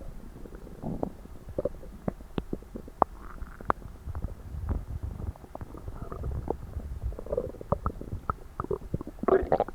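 Human stomach and gut gurgling while digesting a very large meal: low rumbling with many quick pops and squelches, and a louder burst of gurgling near the end.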